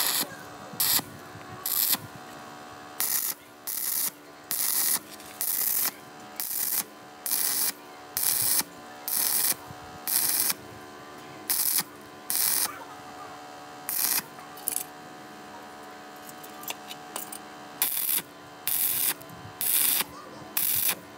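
Stick welding arc crackling in short bursts, about one a second, as the electrode is struck again and again to tack steel rods together. There is a few-second break past the middle, and a steady hum runs underneath.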